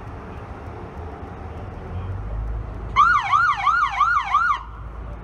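An electronic police siren gives a short yelp burst about three seconds in: five quick rising-and-falling sweeps over about a second and a half, the loudest sound here, over a low steady vehicle hum.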